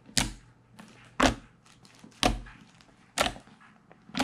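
White fluffy slime made with shaving foam, squished and pressed by fingertips, giving five short sharp pops about a second apart.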